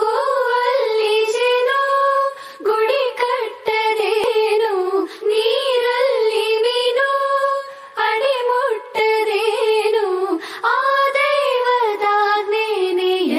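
A high voice singing a slow, ornamented devotional melody, the opening of a Kannada song to the goddess Sharada (Saraswati), in phrases of held, wavering notes with short breaks between them.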